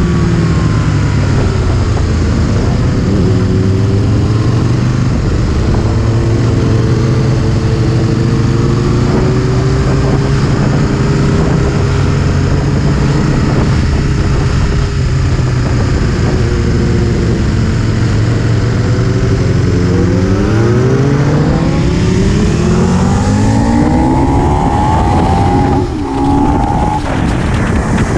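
Aprilia Tuono 1000's V-twin engine running at road speed, holding a steady note for most of the time. Several seconds from the end it revs up hard, the pitch climbing again and again through the gears, with a brief drop in level near the end.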